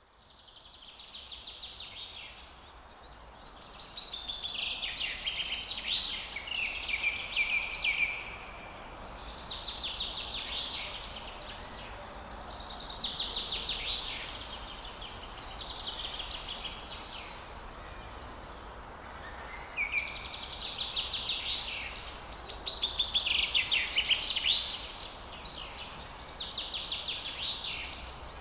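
Forest songbirds singing: bursts of rapid chirping trills a few seconds apart, over a steady faint background hiss.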